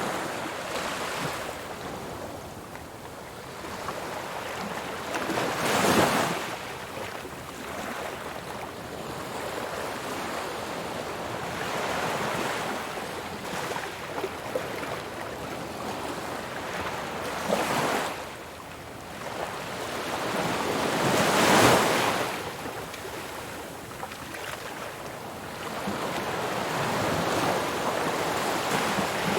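Ocean waves washing ashore in slow swells, the loudest breaking about six seconds in and again about eighteen and twenty-two seconds in, with wind noise on the microphone.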